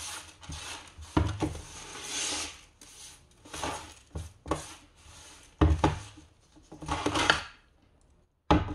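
Coarse gravel grit rattling and scraping as spilled potting grit is swept up around an earthenware ttukbaegi pot. The pot knocks dully against its tray about three times as it is shifted and turned.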